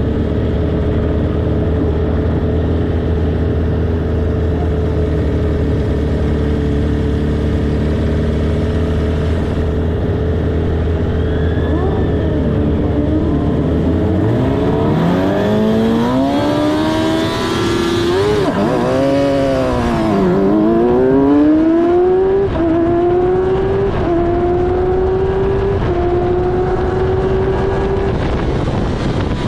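Onboard sound of an F1000 single-seater's Suzuki motorcycle-derived engine held at steady revs, then accelerating hard about 14 seconds in. The revs climb in steps with quick upshifts, drop and rise again briefly, then climb through further gears.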